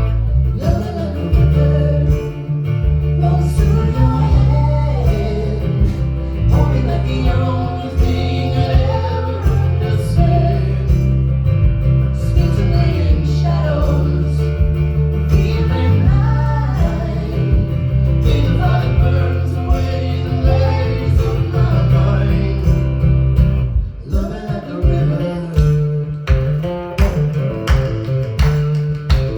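A live band playing a song with a singer over guitar and a heavy bass. About 24 seconds in the singing stops and the low end thins out, leaving the guitar strumming.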